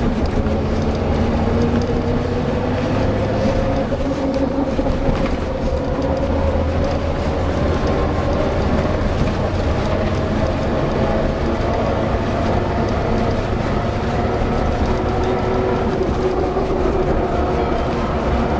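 Engine and road noise heard from inside a moving van: a steady low rumble, with a whine that slowly rises in pitch as the van gathers speed.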